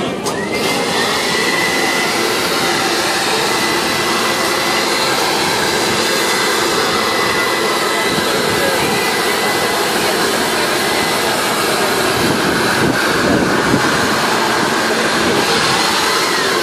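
Electric air blower inflating a clear plastic water walking ball, running steadily with a high whine over its rushing air. It starts abruptly and cuts off near the end.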